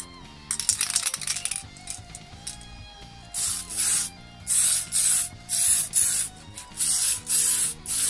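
Aerosol spray-paint can, nearly empty, spraying in a crackly spluttering burst about half a second in. From about three seconds it gives a run of short hissing bursts, roughly two a second. Background music plays throughout.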